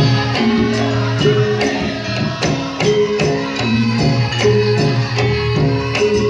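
Live band music with a steady beat of jingling, tambourine-like percussion over held pitched notes.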